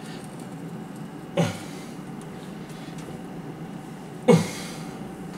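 Two short throaty grunts from a man straining as he tightens a threaded pipe fitting with a large spanner, about three seconds apart, over a steady background hum.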